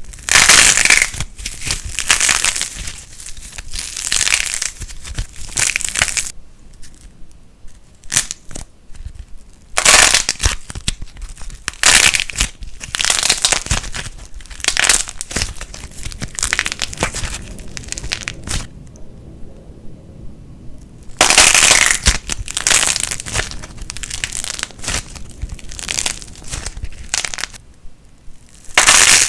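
Crackling light plasticine being squeezed and pulled apart by hand, giving dense, crisp crackling in bursts. There are two short lulls, one about a third of the way in and one about two-thirds of the way in.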